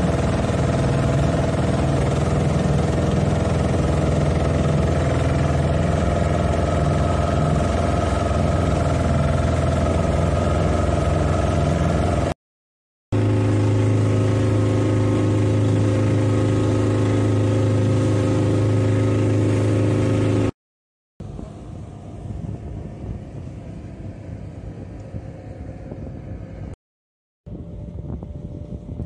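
A speedboat's engine running steadily under way, a loud drone with a strong low hum. It cuts out briefly about 12 seconds in and resumes. From about two-thirds of the way through it is much quieter, a rushing sound in which the engine is only faint.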